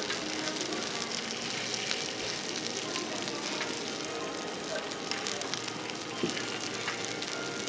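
Kobe beef sirloin steak sizzling steadily in its rendered fat on a hot griddle, with fine crackling throughout.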